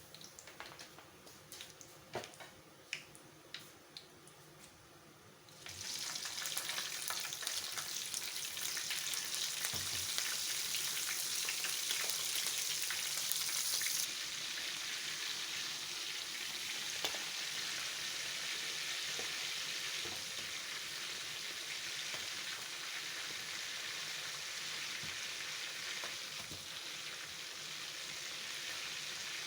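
A few light clicks and knocks, then about six seconds in a loud sizzle of chicken frying in hot oil in a frying pan starts suddenly and keeps going steadily.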